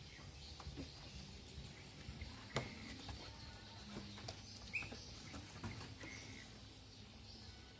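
Quiet outdoor background with a few faint short chirps and scattered light clicks and taps, the sharpest about two and a half seconds in.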